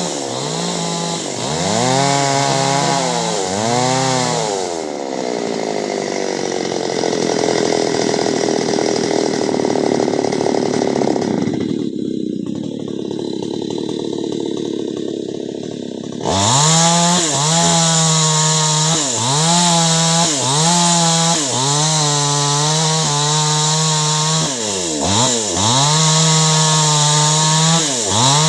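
Chainsaw cutting clove-tree wood, its engine note repeatedly dipping under load and picking back up. Through the middle it bogs down in one long slow drop in pitch, then cuts on at high revs with many quick dips as the chain bites.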